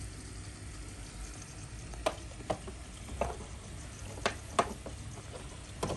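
Small UFO air pump running, its air bubbling and fizzing steadily in the aquarium water. Several sharp plastic clicks and knocks come as an LED light bar is fitted into the tank's lid.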